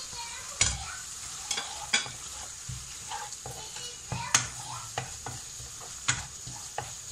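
Vegetables in sauce sizzling in a non-stick kadai while a wooden spatula stirs them, with about five sharp knocks and some scrapes of the spatula against the pan.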